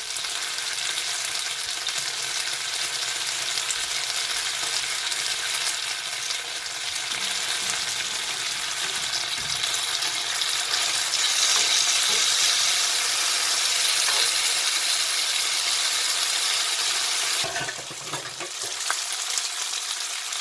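Food frying in a hot pan: a steady, loud sizzle that swells toward the middle and dips briefly near the end.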